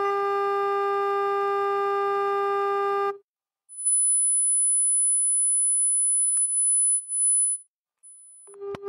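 Sine-wave test tones from a function generator played through a Lepy LP-2020A mini amplifier (Yamaha YDA138 chip) and its speaker. A steady low test tone with clear overtones stops about three seconds in. After a short gap, a very high, piercing tone sounds for about four seconds with a click partway through, then briefly again. The low tone comes back near the end.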